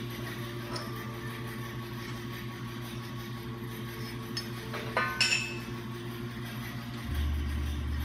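Bent steel weld-test coupons clinking against each other and the steel workbench as they are picked up and handled, with a few sharp clinks about five seconds in. Under it a steady low shop hum, which grows louder near the end.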